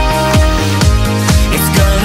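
Pop music without singing: a steady kick drum on every beat, about two beats a second, under sustained synth chords.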